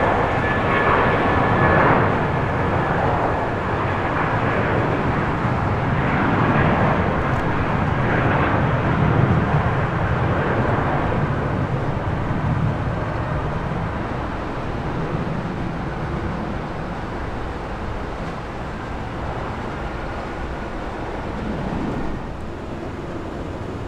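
Airbus A320-232's IAE V2500 turbofan jet engines: a loud, steady jet rumble as the airliner passes. It swells and then slowly fades away, and a faint engine whine dies out in the first couple of seconds.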